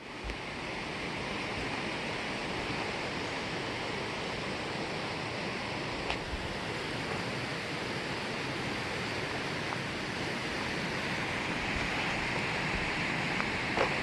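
Rushing river water: a steady hiss of flowing water that swells slightly toward the end.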